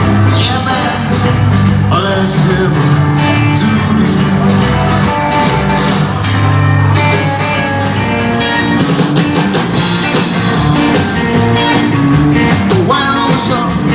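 Live rockabilly band playing a song without vocals: hollow-body archtop guitar, electric guitar, upright bass and drums.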